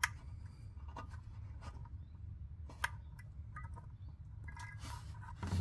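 Faint clicks and rubbing as the lever of a Fumoto oil drain valve on a car's oil pan is pushed and swung open by hand, with one sharper click about three seconds in. A steady low hum runs underneath.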